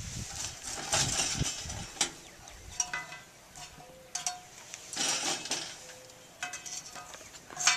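Metal tongs setting charcoal briquettes on a cast iron Dutch oven lid: irregular clinks and scrapes of coal and tongs on iron, with short metallic rings.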